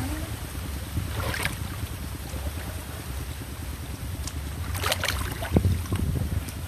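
Muddy ditch water sloshing and splashing as hands grope through it, with brief splashes about a second and a half in and again around five seconds, over a steady low rumble of wind on the microphone.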